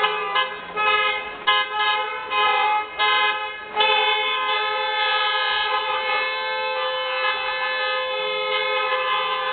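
Car horn honking on a two-note chord: a run of short, uneven toots, then held down without a break from about four seconds in.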